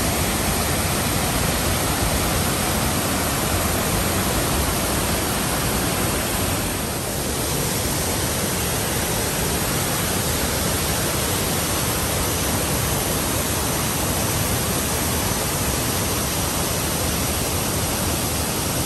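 Dingmans Falls, a waterfall, rushing steadily at close range as a continuous wash of falling water, briefly a little softer about seven seconds in.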